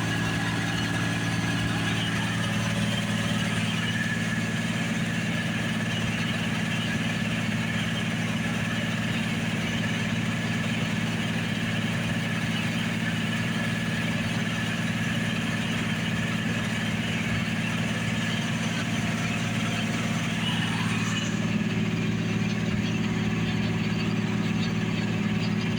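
John Deere combine running steadily at work in barley: a constant engine and machinery hum with a steady low drone. About three-quarters of the way through, the high hiss drops away and the drone shifts slightly in pitch.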